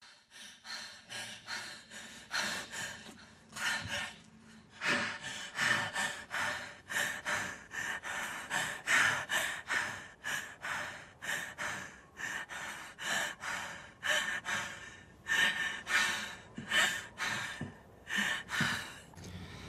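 A woman's ragged, labored breathing: quick, uneven gasping breaths in and out, in pain and distress from serious injury.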